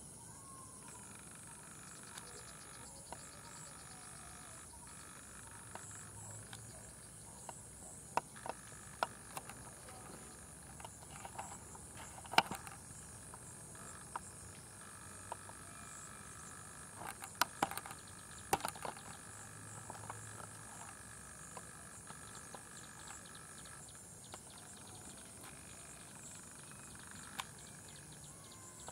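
Evening chorus of insects buzzing steadily at a high pitch, with a lower, pulsing call from frogs or insects. Scattered sharp clicks and snaps cut through it, the loudest about twelve seconds in and in a cluster a few seconds later.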